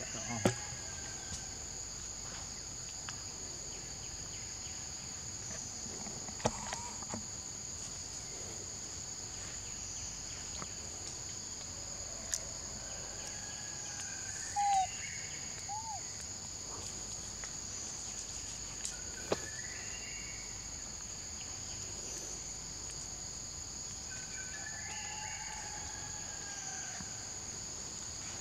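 Steady high insect drone on two pitches from the forest, with a few faint bird calls. Two short chirps come about halfway through, and sharp clicks sound now and then.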